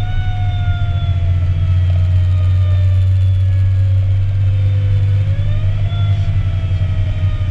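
Fire engine running at highway speed, its engine and road noise heavy inside the cab. Over it a mechanical siren slowly winds down in pitch, spins back up about five seconds in, then winds down again.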